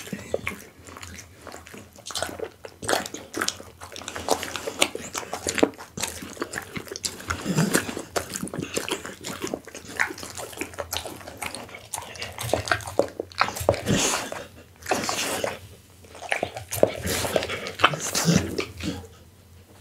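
Pit bull chewing raw beef close to the microphone: irregular chomps and mouth smacks, then licking near the end.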